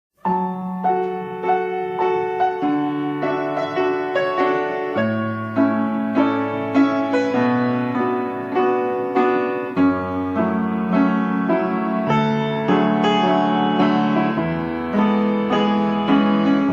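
A song's piano intro starting suddenly after silence: steady chords with repeated notes struck about twice a second.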